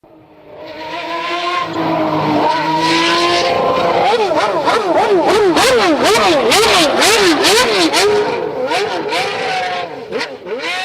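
Car engine revving: the pitch climbs for a few seconds, then is blipped up and down quickly, about twice a second.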